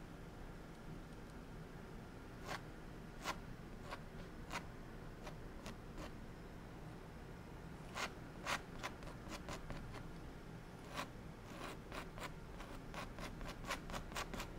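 Paintbrush working on a stretched oil canvas: faint scratchy strokes and short taps at an uneven pace, coming quicker in the last few seconds.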